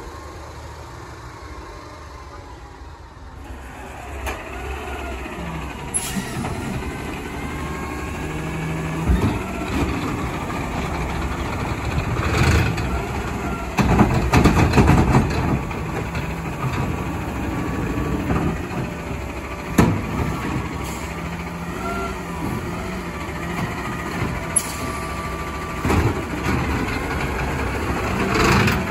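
Autocar McNeilus ZR automated side-loader garbage truck working at the curb. Its engine runs throughout, quieter for the first few seconds, then louder with air-brake hisses. Its arm gives sharp knocks and bangs as it grips and lifts a trash cart, several times over.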